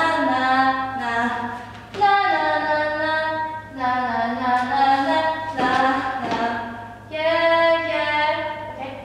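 A woman singing a pop melody unaccompanied while she dances, in long held notes, about five phrases with short breaks between them.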